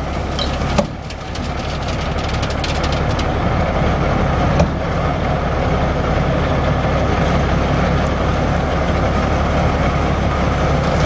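Cummins NTC 14-litre six-cylinder turbo diesel of a Freightliner dump truck running steadily while the steel dump bed lowers. The engine grows a little louder over the first few seconds. Light crackling clicks and a sharp knock come about a second in, and another knock comes near the middle.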